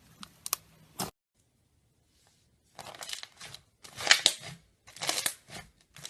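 Slime being squeezed and worked by hand, crackling in bursts about once a second. A couple of sharp clicks and a brief silence come before it.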